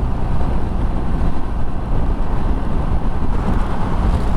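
Steady wind rush and road noise of a motorcycle ridden at about 60 mph on a wet road, heard through a microphone on the bike or rider, with a heavy low rumble and no distinct events.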